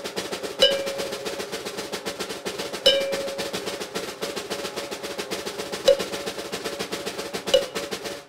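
Background music: a fast, busy percussion track with a rapid drum-roll pattern, and a ringing, bell-like note that comes in four times.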